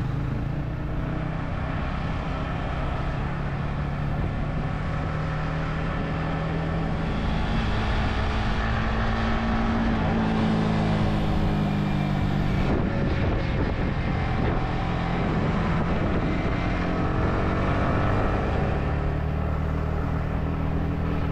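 A motor vehicle's engine running steadily under way, with a rushing noise around it; its pitch rises and falls a little around the middle.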